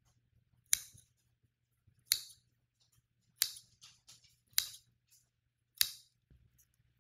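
Five sharp cutting strokes in food preparation, about one every 1.2 seconds, each with a short fading tail.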